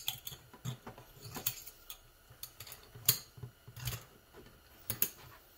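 Steel snap ring being worked into its groove on a Ford C6 transmission's forward ring gear and drive hub, giving a string of sharp metallic clicks and clinks, the loudest about three seconds in.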